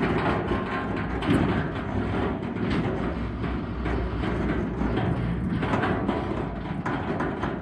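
Crawler tracks of a giant open-pit mining machine travelling: a dense mechanical rumble with irregular clanking of the steel track shoes throughout.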